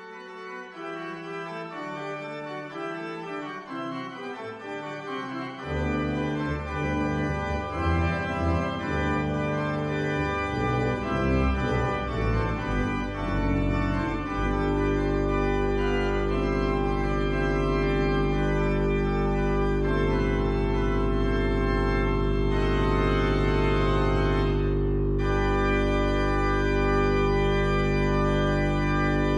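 Organ music: a slow passage of changing chords, with deep bass notes coming in about six seconds in, then settling into one long held chord for the second half.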